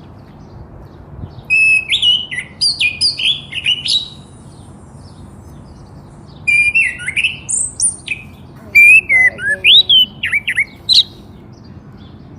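Small birds chirping and tweeting in three quick bursts of high, bending whistled notes, with short pauses between them.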